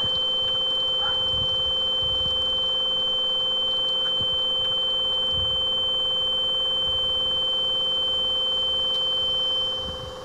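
Piercing, loud, high-pitched steady electronic tone with a weaker lower tone beneath, a sound effect simulating the ringing in the ears of a concussion; it drops in level near the end.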